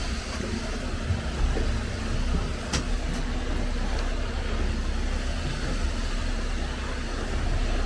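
Tour boat's engine running with a steady low drone, and one sharp click about three seconds in.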